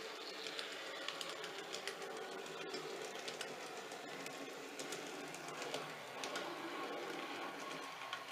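N gauge model train running on the layout's track: a steady small-motor whir with irregular clicks of wheels on the rails.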